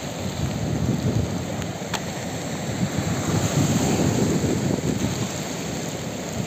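Wind buffeting the microphone over the steady wash of rough, breaking surf on a stormy sea, in rain.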